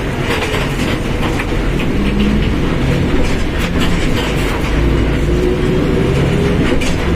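Mercedes-Benz OF1721 bus on the move: a steady low drivetrain rumble with a faint whine that shifts in pitch, the differential sound the recording is about, over scattered rattles and clicks from the body.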